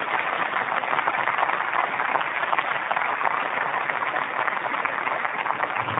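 Steady applause from many people clapping at once.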